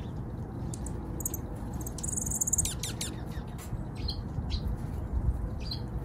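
Small wild songbirds calling: scattered high chips, a brief high buzzy trill about two seconds in, then a quick run of steeply falling whistled notes, over a steady low background rumble.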